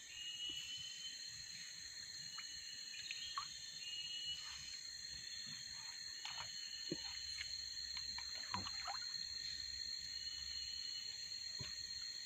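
Tropical forest ambience: insects droning steadily in several high, even tones, with scattered short chirps and a few soft knocks and rustles.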